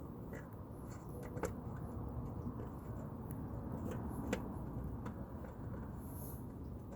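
Light clicks and taps of a hand tool working a tight bolt on a lawn mower, two sharper clicks about a second and a half and four seconds in, over a low steady rumble.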